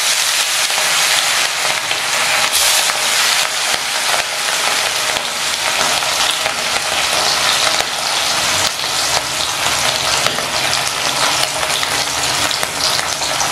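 Marinated hilsa fish pieces frying in hot mustard oil in a steel wok: a loud, steady sizzle and crackle of spattering oil.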